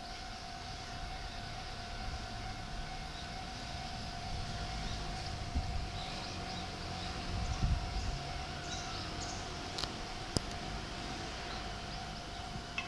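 Japanese railway level-crossing warning signal sounding one unchanging high tone throughout, with a low rumble that swells in the middle.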